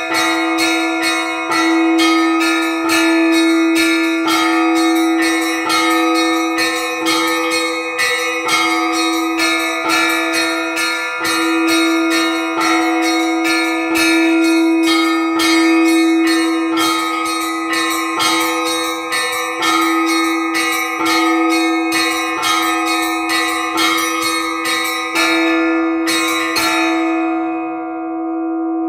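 Orthodox church bells rung in a simple repeating pattern: quick strikes on several bells over the steady hum of a lower bell. A little before the end the striking stops and the bells ring on and die away.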